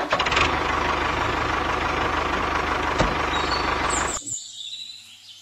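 Small electric gear motor of a toy tractor whirring steadily as it drives, with one click about three seconds in; the sound cuts off suddenly about four seconds in.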